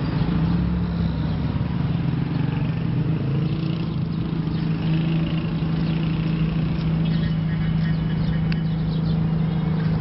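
Street traffic noise with a steady engine hum running throughout.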